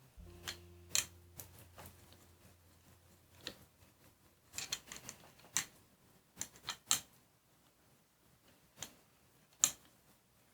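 Scattered sharp clicks and taps, singly and in short clusters with pauses between, from printmaking tools and materials being handled on a work table.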